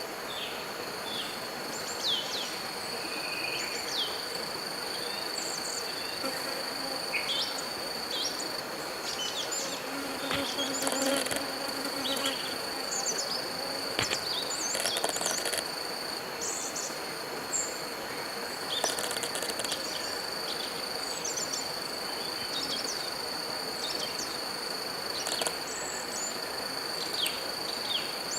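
Natural ambience: a steady, high-pitched insect drone throughout, with many short, downward-sliding bird calls scattered across it.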